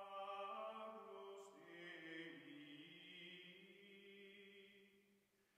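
Faint background music of soft, sustained voices in a choir or chant holding long notes, which shift pitch slowly and fade out near the end.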